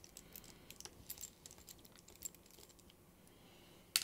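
Faint, scattered small clicks and taps of the DJI Avata's plastic body being handled, with one sharper click near the end.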